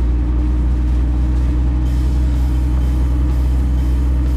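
1975 Jeep CJ5's engine running at a steady speed as it drives a gravel trail, heard from inside the cab: a steady low engine drone with road noise, no revving.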